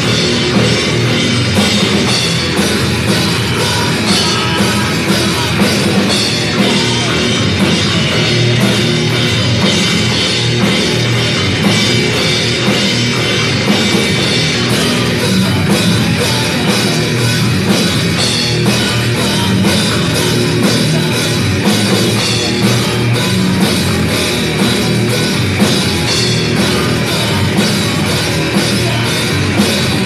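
Live rock band playing loud, with electric guitar through amplifiers over a drum kit beaten at a steady, fast rhythm.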